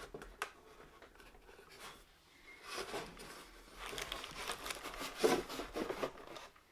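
Bamboo board panels handled and pressed together by hand at a tabbed corner joint: a few light knocks at the start, then several seconds of rubbing and scraping as the tabs are worked into the slots.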